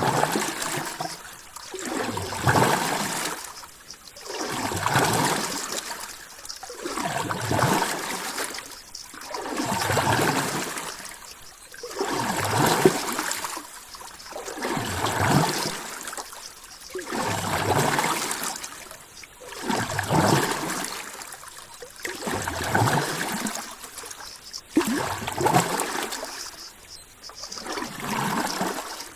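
Rushing water swelling and fading in regular surges, about one every two and a half seconds.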